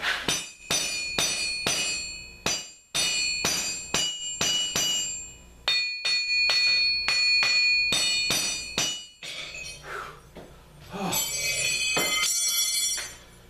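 Hammer blows on steel over an anvil, about two to three strikes a second with a couple of short pauses, each blow leaving the metal ringing. A louder, denser run of ringing comes near the end.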